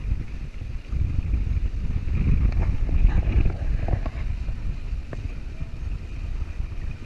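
Wind buffeting the microphone in gusts, heaviest in the middle, over the rush and splash of water alongside a moving boat, with a few small sharp knocks or splashes.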